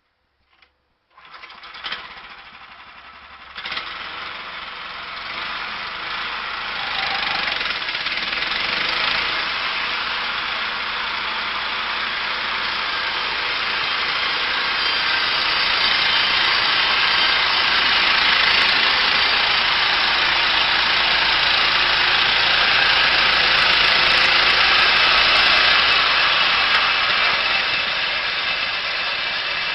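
An engine-driven machine starts up about a second in, with two sharp jolts, then runs with a steady, loud noise that builds over the next several seconds and holds.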